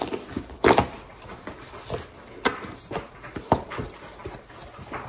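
Hands digging through a cardboard box full of foam packing peanuts: a string of about six short rustling, crunching bursts.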